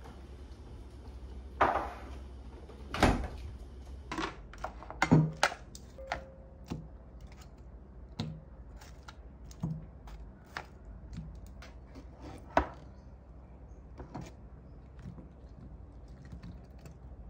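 Kitchen handling sounds: a series of scattered knocks and clinks as metal tongs and a spoon put fruit into a glass bowl beside an opened tin, the loudest knock about three seconds in.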